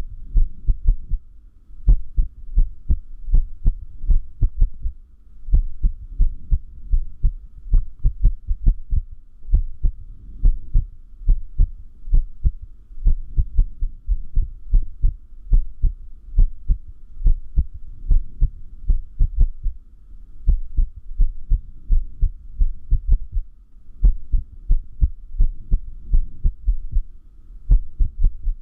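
A human heartbeat, each beat a pair of dull low thumps, coming at uneven intervals with a few longer pauses between beats: an irregular rhythm, the sign of an arrhythmia.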